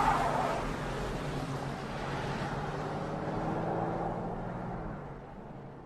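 A large car driving off along a wet street, its engine and tyre noise fading away over a few seconds.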